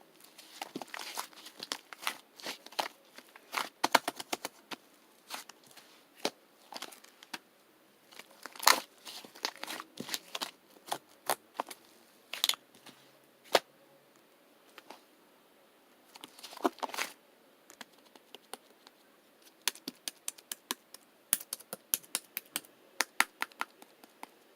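Slime being worked by hand, making irregular sticky clicks, pops and crackles in clusters with short pauses between.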